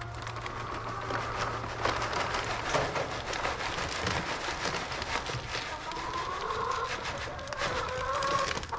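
Chicken feed pouring from a bag into a plastic poultry feeder: a steady, rain-like pattering of feed grains. A faint pitched call rises and falls near the end.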